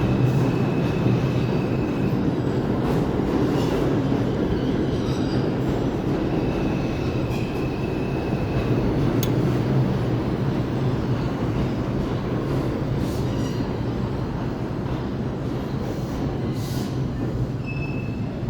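New York City subway train running through the station, with a steady rail rumble and short high-pitched wheel squeals that come and go a few times; the rumble eases off slightly near the end.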